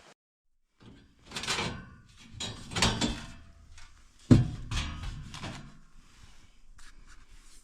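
A series of scraping and rustling handling noises with knocks, one sharp knock a little past halfway the loudest.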